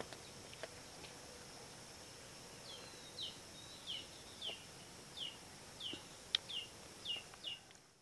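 A small bird calling outdoors in a run of about nine short, falling chirps, a little under two a second, starting about three seconds in, over faint rural ambience with a steady high whine. One sharp click about six seconds in.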